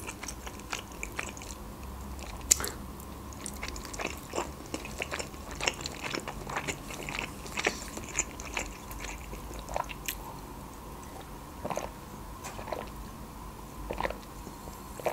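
Close-miked chewing of boiled pelmeni dumplings: soft wet mouth clicks and smacks scattered throughout, with one sharper click about two and a half seconds in.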